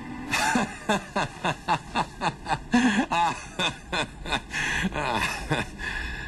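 A man laughing in a long run of short bursts, about four a second, lasting some five seconds.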